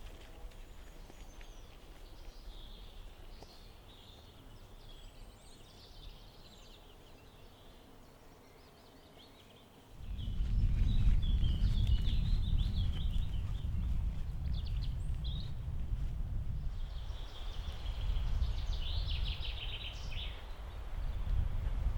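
Songbirds chirping and trilling in the forest. About halfway through, a loud low rumble of wind buffeting the microphone sets in suddenly and continues under the birdsong.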